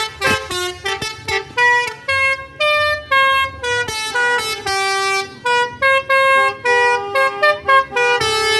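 Basuri multi-tone 'telolet' car horn playing a tune: a quick run of short, piercing notes at changing pitches, ending on a longer, lower held note.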